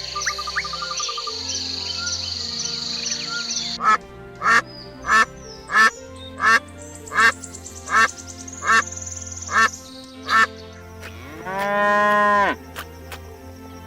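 Duck quacking, about ten short quacks in an even series. Background music runs underneath. A steady high-pitched insect trill fills the first few seconds, and a single long drawn-out animal call comes near the end.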